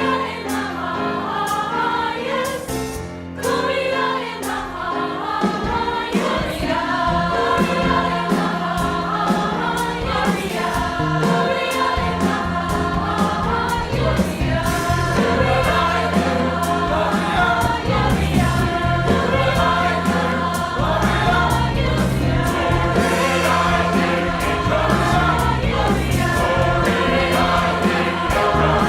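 Choir singing with instrumental accompaniment over a steady bass and beat.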